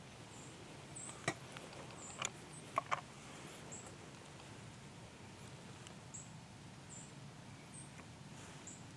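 Faint, short, high-pitched chirps repeating roughly once a second, with a few sharp clicks a little over a second in and again around two to three seconds in.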